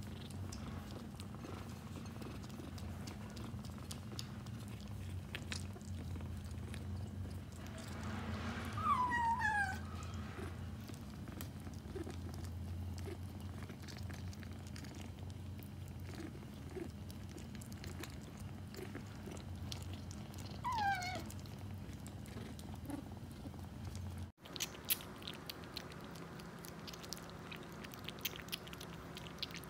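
Kitten purring steadily while it crunches dry kibble, giving two short falling mews, about 9 and 21 seconds in, as it eats. Near the end, quick small clicks of a kitten lapping water from a plate.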